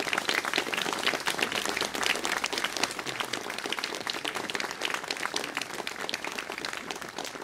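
Audience applauding, many hands clapping in a dense, steady patter that eases off slightly toward the end.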